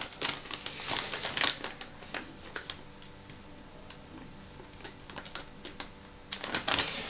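Plastic MRE flameless-heater sleeve crinkling and clicking as it is handled and stood on a stone table. A quieter stretch with a few faint ticks follows, then louder crinkling starts again near the end.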